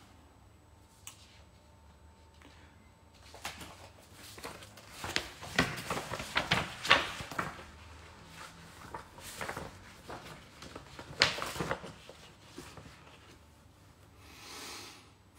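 Handling noise from a smartphone being picked up and turned over: a string of small clicks and light knocks, busiest in the middle, then a short soft hiss near the end.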